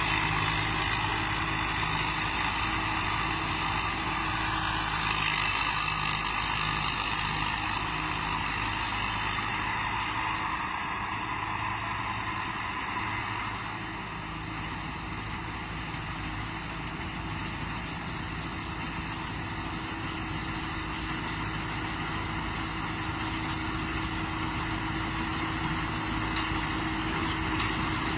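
Combine harvester's diesel engine running steadily, fading a little about halfway through and growing louder again near the end.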